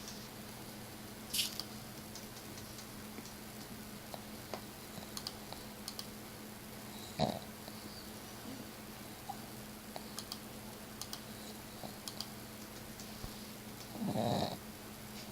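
Domestic cat snoring faintly in its sleep, with one louder snore near the end. A sharp click sounds about seven seconds in.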